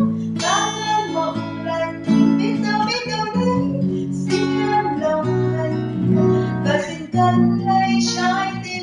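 A woman singing a slow ballad to a strummed acoustic guitar accompaniment, heard through a security camera's built-in microphone.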